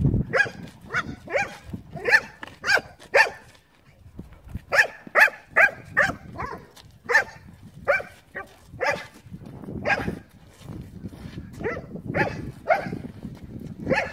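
A dog barking during rough play, about twenty short, high barks in quick runs of several a second with brief pauses between runs.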